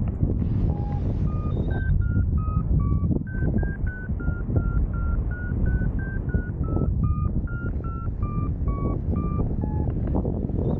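Paragliding variometer beeping: a quick run of short electronic tones, several a second, stepping up and down in pitch with the changing climb rate in lift. Heavy wind noise on the microphone runs underneath.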